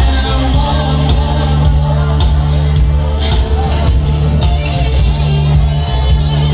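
Live rock band playing: drums keep a steady beat under held bass notes and electric guitar, with a woman singing into the microphone.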